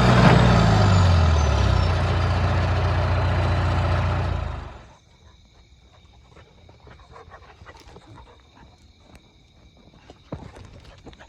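Diesel engine of a John Deere 455E crawler loader running loud, its revs falling in the first second, then cutting off about four and a half seconds in. Afterwards only faint outdoor background with scattered light ticks and a single knock near the end.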